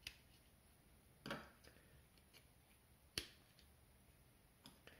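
Small plastic clicks and snaps from 3D-printed toy finger pieces being pushed onto the hand's ball joints. There are about three distinct clicks, a slightly longer one about a second in and the sharpest about three seconds in, with quiet between them.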